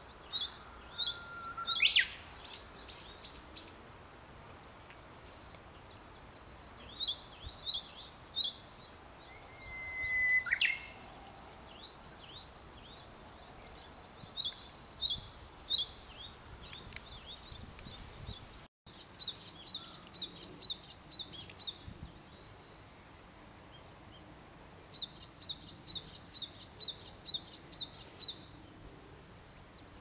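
Small songbirds singing: bursts of rapid, evenly repeated high chirps, each burst lasting one to three seconds and returning about every five or six seconds. There are also two whistled notes that end in a quick sweep, one near the start and one about ten seconds in.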